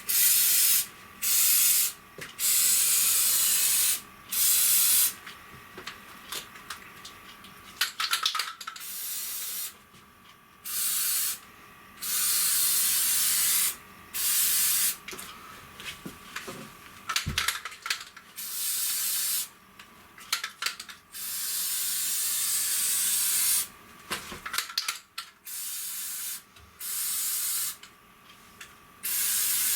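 Aerosol can of rubberized rocker guard coating spraying in a series of hissing bursts, some short, some about two seconds long, as seams and rivets are sealed.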